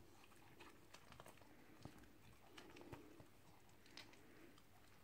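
Faint wet clicking and smacking of a small dog licking and chewing a piece of waffle.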